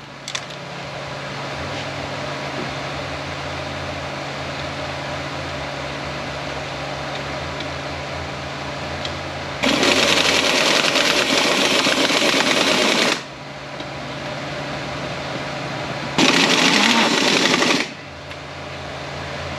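A shop power tool running at the bench: a steady mechanical whir, then two much louder bursts, about three seconds long some ten seconds in and about a second and a half long near the end, over a constant low shop hum.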